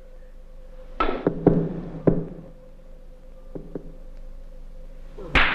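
Billiard shot: the cue taps the cue ball about a second in, and the ivory-hard balls clack together in a quick run of sharp clicks, followed by two fainter clicks a couple of seconds later. A louder, sharp noise comes near the end.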